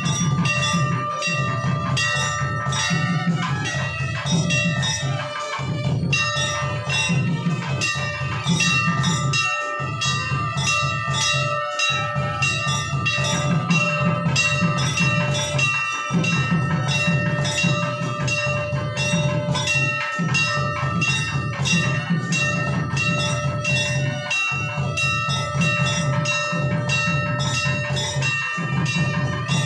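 Temple bells ringing rapidly and without pause for the maha mangala aarti, sustained bell tones over a steady low din.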